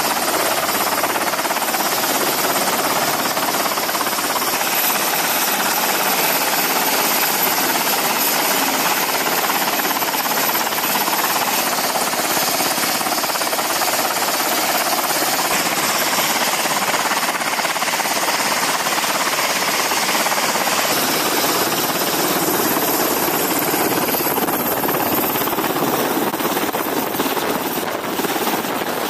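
MH-60 Seahawk helicopter's twin turboshaft engines and main rotor running at close range, a loud steady rotor and engine noise with a thin high turbine whine that rises slightly late on.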